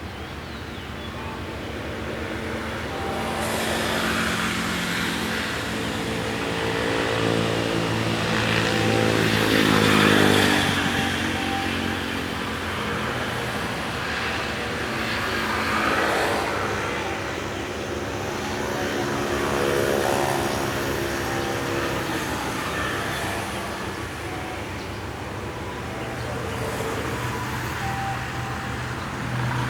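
Motor engines running, rising and falling in pitch and loudness. The loudest, about ten seconds in, drops in pitch; another swells up and falls away about twenty seconds in.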